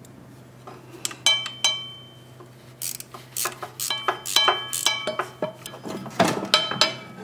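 Irregular metal clinks and taps with a short ring, from hand tools and small steel brake parts knocking together while the rear brake caliper of a Honda GL1500 Gold Wing is reassembled. The clinks start about a second in and come thicker near the end, over a faint steady hum.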